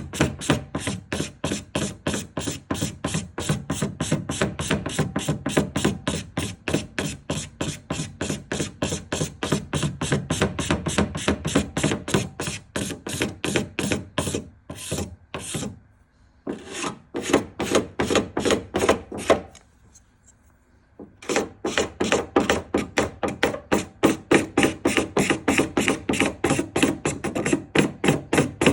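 Rapid back-and-forth hand rubbing strokes on car paint, several a second, scratchy like filing, as a paint run is worked down. The stroking pauses briefly twice, once past the middle and again a few seconds later.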